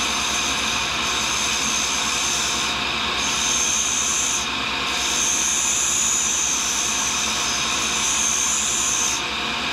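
A tool and cutter grinder's abrasive wheel running with a steady motor hum while a tool bit is hand-held against it, grinding a nick out of the edge. The high grinding hiss comes in three long stretches, with two short breaks a few seconds in.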